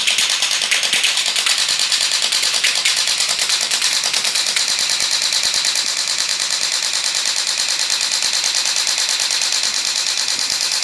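Well D93 Uzi electric airsoft gun (AEG) firing fully automatic in one long unbroken burst, its motor-driven gearbox and piston cycling in a rapid, even rattle.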